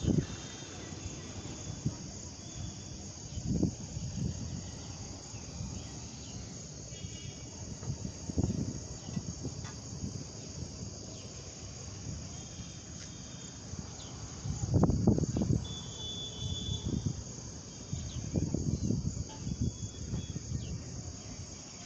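A steady, high-pitched chorus of insects keeps up without a break. Low rumbling gusts of wind buffet the microphone every few seconds and are loudest about fifteen seconds in.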